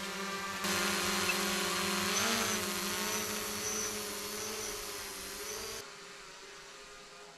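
DJI Mavic Pro quadcopter's propellers whining as it hovers and manoeuvres, the pitch bending up about two seconds in and then wavering. The sound cuts off suddenly about six seconds in.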